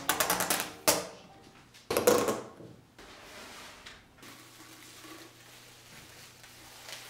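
Plastic food-storage containers and their lids clattering as they are handled and set down. A quick run of clicks is followed by a sharp click about a second in and a louder clatter about two seconds in, after which only a faint low hum remains.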